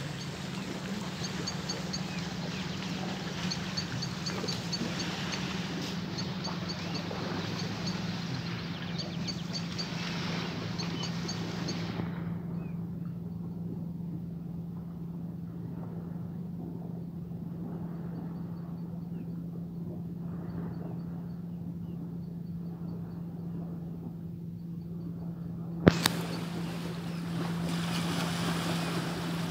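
Steady low hum of a motorboat engine out on the lake, over the hiss and lap of lake water at shoreline rocks; the water hiss drops away sharply about twelve seconds in. Faint high chirps repeat throughout, and a single sharp knock comes near the end.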